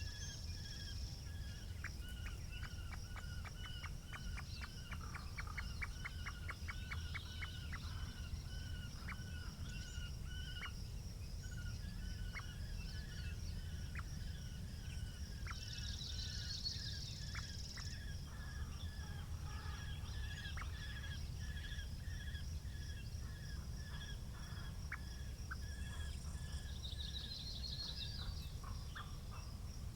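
Small birds singing and calling outdoors in short repeated notes and quick trills, over a low steady rumble of wind.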